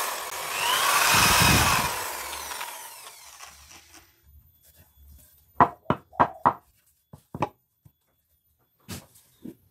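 A handheld power tool running on wood, then winding down and fading out over the first few seconds. After a short pause come a quick run of about four sharp knocks, then a few scattered knocks on wood.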